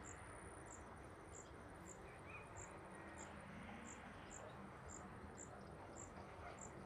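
Crickets chirping faintly outdoors: short high chirps, evenly spaced about twice a second, over a thin steady high whine.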